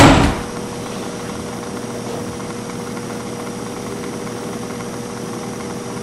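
A door bangs shut at the very start, then a steady hum with a faint constant tone.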